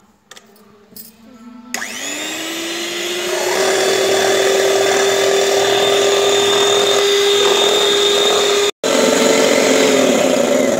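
Sayona electric hand mixer switching on about two seconds in, its motor whine rising in pitch as it speeds up, then running steadily as the twin wire beaters whip cream in a steel bowl. The cream is still thin at this stage. Near the end the whine drops in pitch as the mixer slows.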